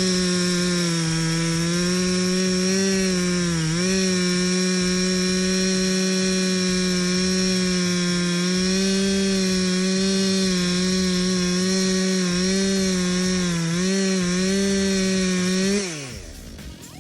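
Two-stroke chainsaw at full throttle cutting into wood with a freshly sharpened chain, its steady high note sagging slightly now and then under load. The revs drop away sharply near the end as the throttle is let off.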